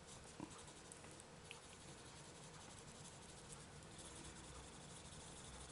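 Faint coloured pencil shading on paper, a soft scratching with a couple of tiny clicks, over a steady low hiss.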